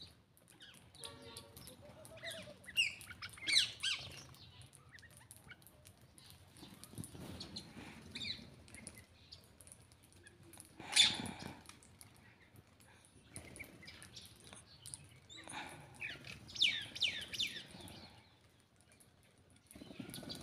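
Short, high squeaky animal calls in clusters, with one loud sharp squawk-like cry near the middle.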